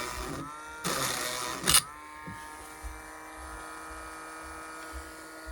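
Dremel rotary tool with a fine-grit sanding stone grinding the yellowed plastic lens of a flashlight. A harsh grinding noise lasts through the first two seconds, then the tool whines steadily at speed with nothing touching.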